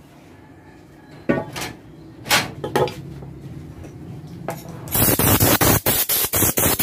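A few clinks and knocks as a metal hand plane and a piece of wood are handled on a workbench. From about five seconds in comes a loud, fast run of rubbing or scraping strokes, about five a second.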